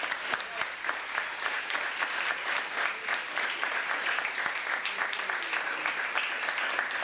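Audience applauding: a steady clatter of many hands clapping.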